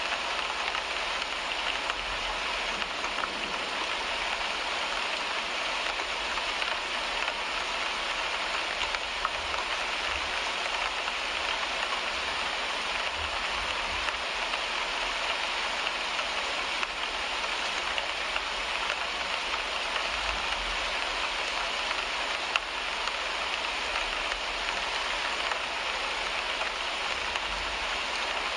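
Steady rain falling on a car windshield, an even hiss of drops on the glass with scattered single drop ticks.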